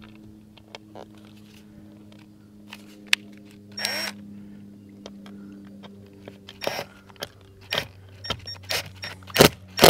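Compact cordless drill run in short trigger bursts at the camper's tail light: one brief spin-up about four seconds in, then a series of quicker bursts and clicks that come more often toward the end. A low steady hum sits underneath.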